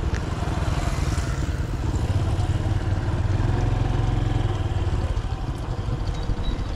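A small engine running steadily, its rapid firing pulses heard under a hiss of wind or water.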